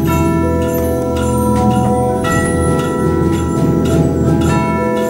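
Percussion ensemble playing slow, sustained ringing chords on mallet instruments such as tubular bells and vibraphone, with a steady low rumble beneath. A few new chords are struck over the held notes.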